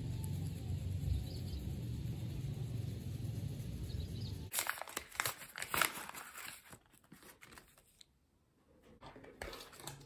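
Steady low wind rumble on the microphone, cut off suddenly about halfway through by hands tearing open and crinkling a paper shipping package. The crackling fades after a couple of seconds, with a brief rustle near the end.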